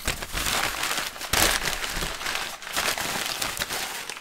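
Brown kraft packing paper being pulled out of a cardboard box and crumpled by hand: irregular crinkling and rustling, loudest about a second and a half in.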